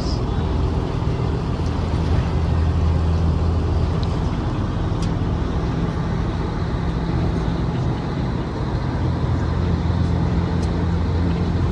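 Ferry's engine running at a steady low drone under a constant hiss.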